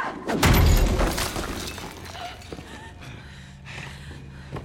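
A loud smashing crash of something breaking apart, lasting about a second and dying away in a rumble. It is followed by a low steady hum.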